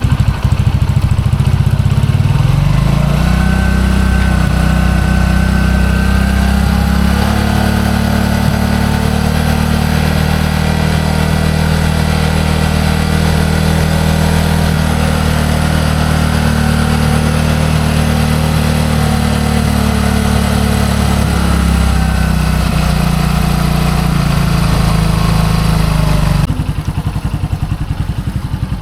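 Bajaj Vikram V15's single-cylinder engine running on the garage floor, first at idle, then held at a steady higher speed from about three seconds in and eased back around two-thirds through. It turns abruptly quieter shortly before the end.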